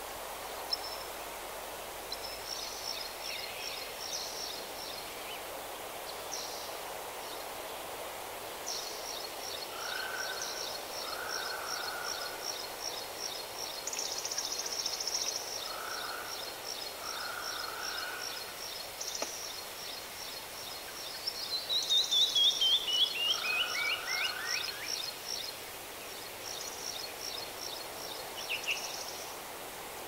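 Several birds singing over a steady background hiss: rapid high trills repeat through most of it, and a run of notes falling in pitch, the loudest part, comes a little past two-thirds of the way in, with a few short lower calls in between.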